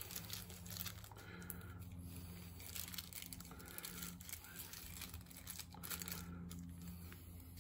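Faint crinkling and light clicking of small parts and their packaging being handled, over a low steady hum.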